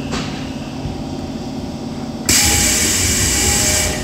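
Tokyo Metro 8000 series subway train running in the tunnel, heard from inside the car as a steady hum and rumble. About two seconds in, a loud hiss starts suddenly and lasts about a second and a half.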